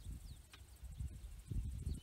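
Quiet pond-side ambience: wind rumbling unevenly on the microphone, with a few short falling bird chirps and a steady faint high insect drone.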